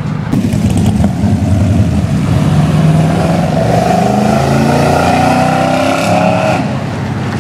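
Cars driving past on a street, one engine accelerating hard, its note climbing, then dropping away near the end.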